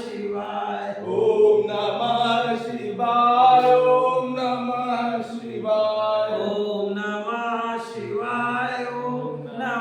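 Devotional chanting of a Shiva mantra, sung by voices together in long held phrases with brief breaks between them.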